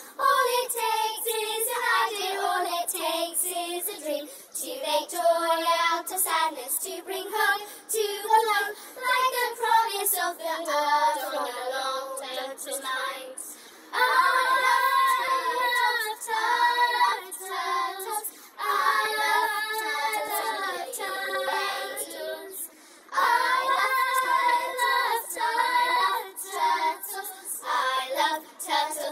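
A song sung by a solo voice in a high register, with long held and gliding notes and little else under it.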